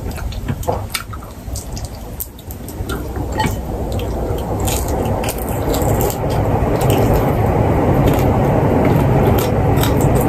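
Close-up chewing and mouth sounds of someone eating crispy roast chicken and its small bones: wet smacking with scattered sharp crunchy clicks. A grainy chewing noise grows louder from about three seconds in.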